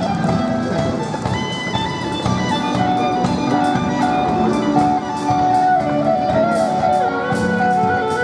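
Live band music: guitar with drums keeping a steady beat and a held melody line over it.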